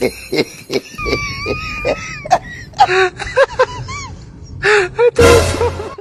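A voice wailing and yelping: a wavering drawn-out wail, then a run of short rising-and-falling cries, ending in a loud shout that cuts off suddenly. A few sharp knocks come in the first second.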